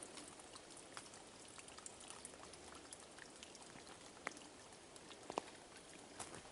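Faint footsteps on a mowed, brush-cut trail, with scattered small crackles underfoot and two sharper clicks about four and five seconds in.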